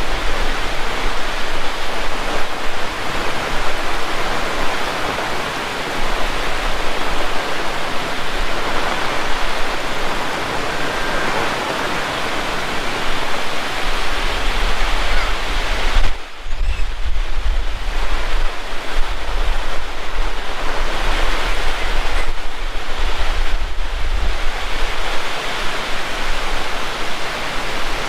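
Heavy rain pouring steadily in strong wind. For several seconds around the middle there is an added low rumble of wind buffeting the microphone.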